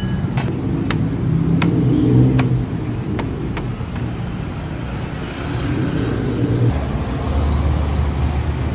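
Road traffic with a motor vehicle's engine running close by, a steady low hum that drops deeper about two-thirds of the way through. A few sharp metallic clicks sound over it in the first few seconds.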